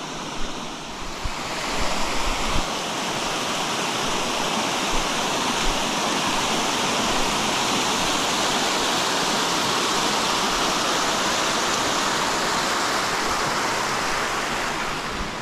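Small waterfall splashing down stepped shale ledges into a creek pool: a steady rush of water that grows louder over the first few seconds, holds, and eases off near the end.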